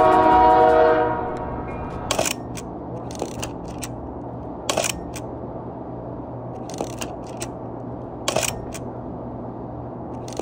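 A loud held chord of several steady tones dies away about a second in. Then, over a low steady hum, come several sharp camera shutter clicks, a second or two apart.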